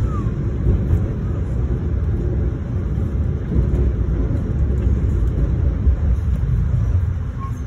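Steady low rumble of a moving passenger train heard from inside the car: wheels running on the rails and the car's running noise, with no breaks or distinct clanks.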